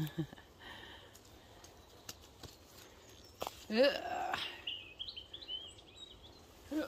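Footsteps over muddy ground and twigs, with a few sharp snaps. About four seconds in, a woman gives a brief rising exclamation of effort, and a small bird chirps a quick series of high notes just after.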